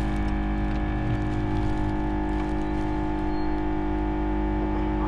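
LCD screen separator machine running with a steady electric hum made of several fixed tones.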